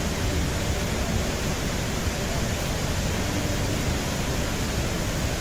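Steady rush of a waterfall, water falling in several parallel streams into a pool below.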